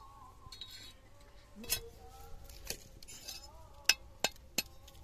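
Eggs tapped against a metal cutting blade to crack them: a series of sharp clicks, the last three in quick succession near the end.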